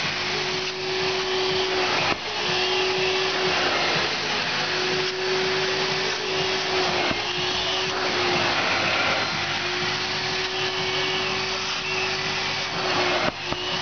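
Upholstery spray-extraction machine's vacuum motor running steadily as its wand is drawn over a fabric car seat. A steady tone in the suction noise breaks off and returns every second or two, with brief dips about two seconds in and near the end.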